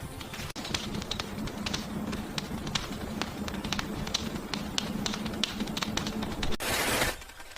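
Light, irregular tapping clicks over a low steady hum, ending in a short loud whoosh of noise about seven seconds in.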